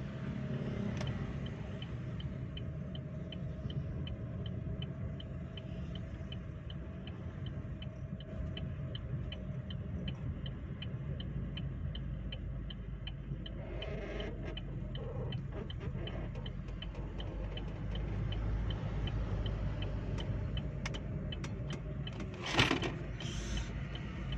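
Steady road and engine rumble inside the cabin of a moving Chevrolet Spin 1.2 LT. A light ticking runs at about three ticks a second for the first half and then stops. A single sharp knock or bump comes near the end.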